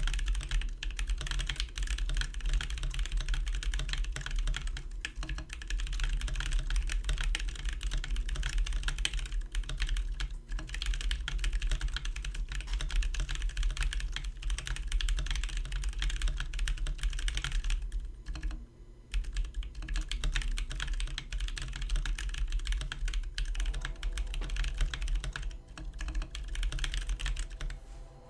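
Fast, continuous typing on an LJD61UP mechanical keyboard, dense keystrokes with a short lull about two-thirds of the way through.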